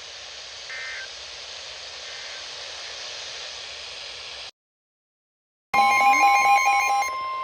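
Weather radio static hiss with a short beep about a second in, then a cut to silence. After the silence, an Emergency Alert System header starts: rapid buzzing data bursts over steady alert tones, thinning to a single steady alert tone near the end.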